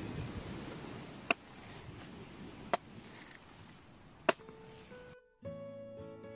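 Kitchen cleaver chopping into the husk of a green coconut: three sharp chops about a second and a half apart. Plucked guitar music starts about five seconds in.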